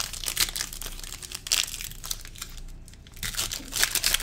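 Plastic trading card pack wrapper crinkling as it is torn open and handled, a quick run of crackles that eases a little past halfway and then picks up again.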